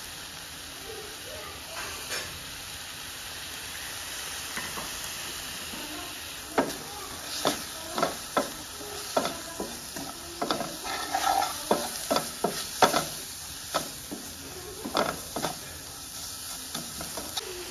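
Onions, green chillies and ground spices sizzling in a metal frying pan, with a steady frying hiss. From about six seconds in, a wooden spatula knocks and scrapes against the pan as the spices are stirred into the onions.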